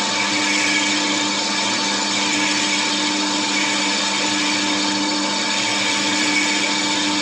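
Lathe running steadily, a constant motor hum with a steady whine over a broad grinding noise.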